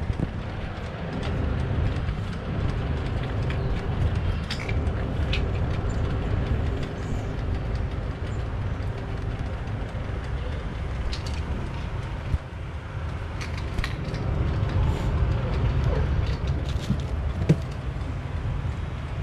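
Steady low rumble of air and handling noise on a camera microphone that is moved about close to the body, with scattered light clicks and small knocks.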